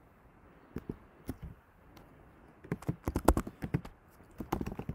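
Typing on a computer keyboard: a few scattered key clicks, then a quick run of keystrokes about halfway through and another starting near the end.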